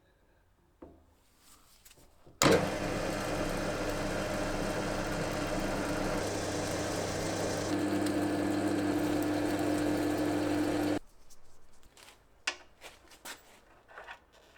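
A machine or power tool switches on with a sharp start about two seconds in, runs steadily with a low electrical hum for about eight seconds, and cuts off suddenly. Its tone shifts a little partway through. Light clicks and knocks come before and after.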